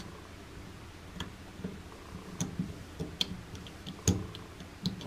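Small, irregular clicks and taps of a white plastic toothed ring being fitted and pressed into place around the cartridge stem inside the chrome body of a TOTO single-lever mixer tap. There are about seven clicks, the loudest about four seconds in.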